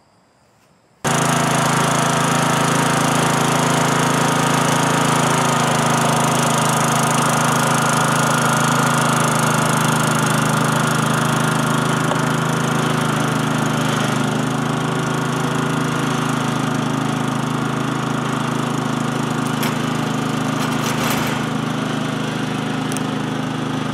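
Riding lawn mower's engine running steadily as it tows a loaded trailer by a rope. It cuts in abruptly about a second in.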